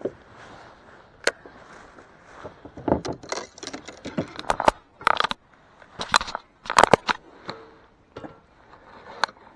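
Irregular clicks, scrapes and knocks of fishing tackle being handled in a small boat while a lure is changed, busiest in the middle and easing off near the end.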